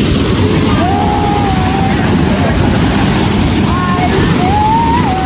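Loud rushing, churning river water at close range, with a voice calling out twice over it in long, high, sliding notes.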